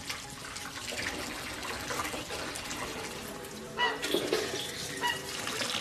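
Water boiling in a pot where duck feet and duck intestines are being blanched to take away their gamey smell, a steady bubbling hiss. Faint background music runs under it, and two brief ringing clinks come about a second apart near the end.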